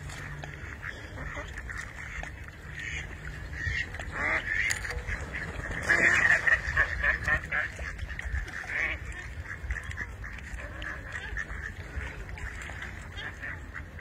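Mallard ducks quacking again and again, loudest about six seconds in.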